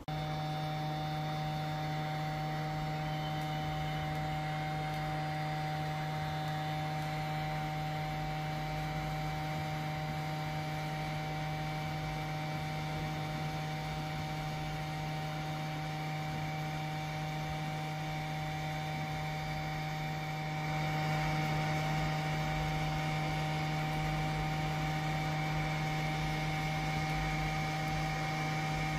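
Steady electric hum from a workbench device, with several fixed tones, that comes on suddenly and grows a little louder about 21 seconds in.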